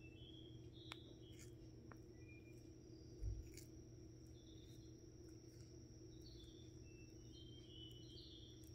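Near silence: faint crisp clicks of a Hermann's tortoise biting into lettuce leaves, over a low steady hum and faint high chirps, with one dull thump about three seconds in.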